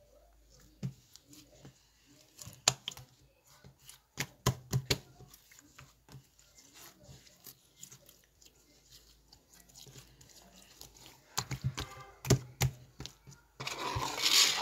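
Slime being squeezed and stretched by hand, giving scattered sharp pops and clicks. A louder rustling burst comes near the end.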